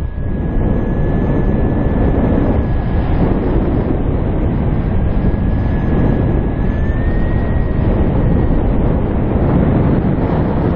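Rushing wind over the camera microphone in fast paraglider flight, a loud continuous buffeting. A thin steady whistle rides on top, rising slightly about seven seconds in and fading out soon after.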